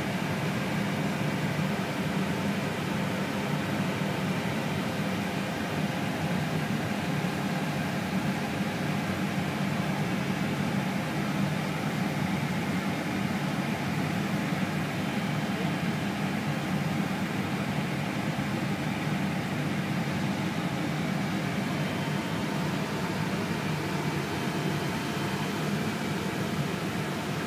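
Steady cockpit air and fan noise of a parked Airbus A319: a constant low hum under an even hiss, with no change throughout.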